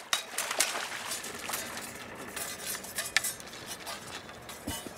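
A hooked sockeye salmon splashing in a landing net at the boat's side, followed by scattered sharp clinks and knocks of gear in the boat.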